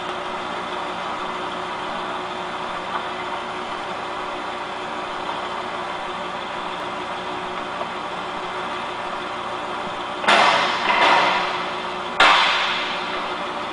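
An engine running steadily, typical of the vehicle towing the helicopter. About ten and twelve seconds in, two sudden loud noisy bursts each fade away over about a second.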